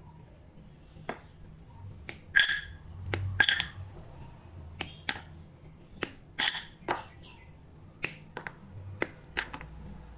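Milk chocolate bar snapped into squares by hand and the pieces dropped into an empty non-stick saucepan: a string of sharp, irregular cracks and clatters, loudest twice, about two and a half and three and a half seconds in.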